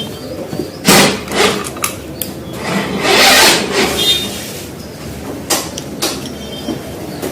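Workshop handling noises: scattered knocks and clanks, a short hiss about three seconds in, a brief high squeak, and a few clicks near the end.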